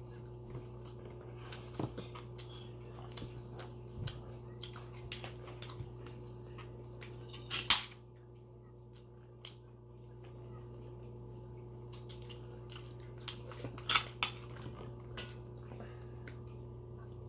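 Eating with bare hands from ceramic plates: scattered light clicks and clinks of fingers and food against the plates, with louder clatters about eight seconds in and again near fourteen seconds.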